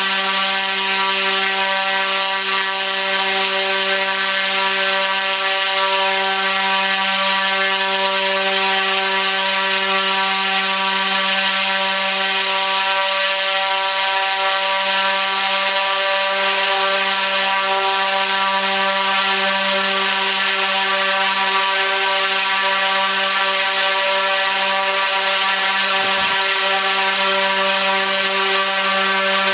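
T-Motor U13 100kV brushless motor spinning a 29-inch three-blade carbon-fibre propeller at full throttle on a test stand: a steady, loud hum with an even rush of air over it, holding constant pitch.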